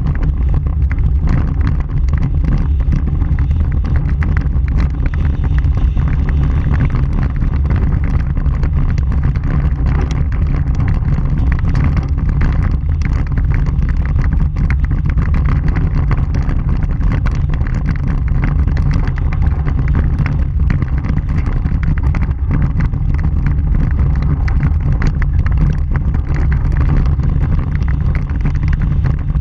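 Vehicle driving on a gravel dirt road, heard from a camera on its front bumper: a steady, loud low rumble of tyres and wind on the microphone, with a constant patter of small gravel clicks.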